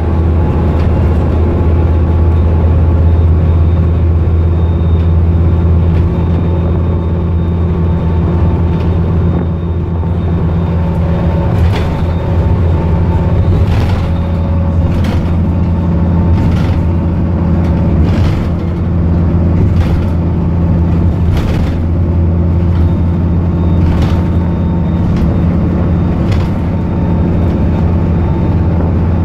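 Scania N230UD Enviro400 double-decker bus heard from on board, its five-cylinder diesel running steadily at cruising speed with a deep hum. Sharp knocks come every second or two through the second half.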